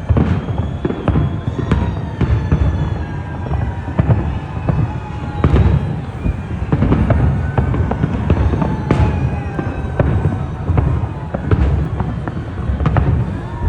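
Fireworks display going off: a dense, steady run of bangs and crackles with a deep rumble, and several whistling tones that slowly fall in pitch.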